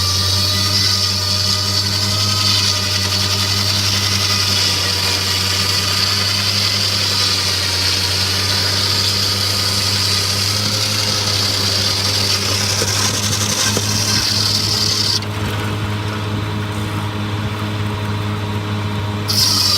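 Circular sawmill machinery running steadily: a low engine hum with a high hiss on top. The hiss drops away for about four seconds near the end.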